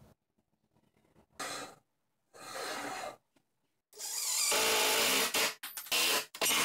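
Cordless impact driver driving screws up into the wooden base to fix the post in place: two short runs early on, then a long loud run from about four seconds in that stops and starts again near the end.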